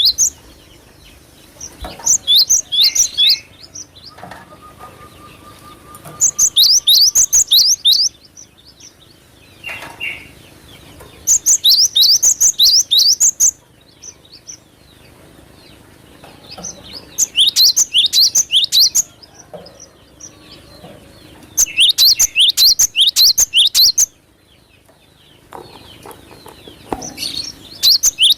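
Cinereous tit (glatik batu) singing: six bursts of rapid, high, downslurred whistled notes, each burst about two seconds long and repeated every four to five seconds.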